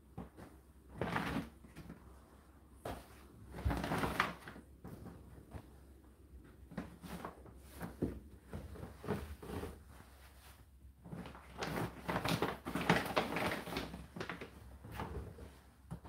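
Laundry being pulled out of the drum of an Indesit condenser tumble dryer: irregular rustling of fabric with soft knocks against the drum and door, coming in short bursts, with a longer busy spell near the end.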